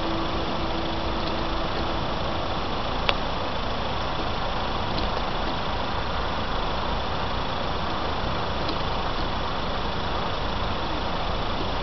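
Steady noise of road vehicles idling while they wait at a closed level crossing, with one sharp click about three seconds in.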